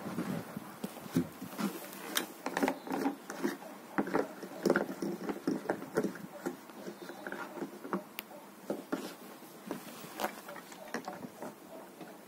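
Irregular plastic clicks and knocks of a jerry can and its flexible spout being handled while petrol is poured into a brush cutter's fuel tank, busier in the first half and thinning toward the end.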